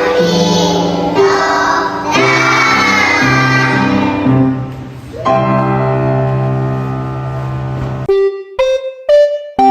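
Young children singing a song over a backing track, moving into long held notes. The voices fade out about halfway through, leaving a held chord, and a few separate keyboard notes follow near the end.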